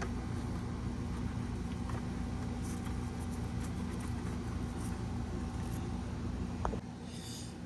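Steady low mechanical rumble with a constant hum, dropping away a little before the end.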